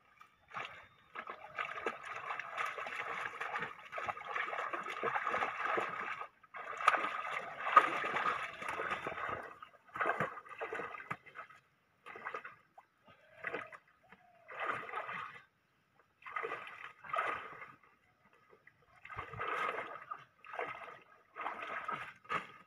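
Shallow pond water splashing and sloshing as a person wades and moves at the water's edge. The sound is fairly continuous for the first nine seconds or so, then comes in short bursts with pauses between.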